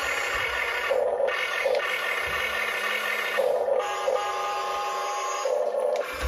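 Small electric motors and gearboxes of a 1:24-scale radio-controlled Cat 336 excavator whining as the boom lifts and the upper body swings round, stopping and starting again a few times.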